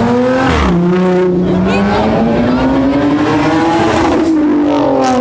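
Car engine revved hard and held at high revs, its pitch dipping early on, then climbing steadily and falling again near the end, as the car spins its tyres in a burnout, with some tyre squeal.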